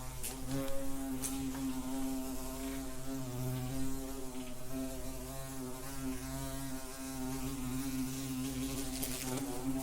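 A wasp buzzing in flight: a steady, slightly wavering drone with many overtones, its pitch swaying a little as the insect moves.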